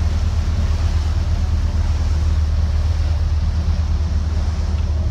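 Engine of a party fishing boat running steadily under way: a constant low hum, with the rush of wind and water over it.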